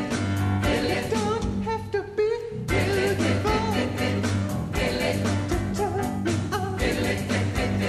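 A pop choir singing over a live band of piano, bass guitar and drums with a steady beat. The bass and drums drop out for a moment about two seconds in, leaving the voices alone, then come back in.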